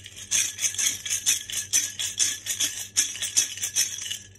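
Handful of numbered draw chips rattling inside a hollow head-shaped container as it is shaken hard by hand to mix them before a draw. It is a fast, bright rattle, about four to five shakes a second, that stops just before the end.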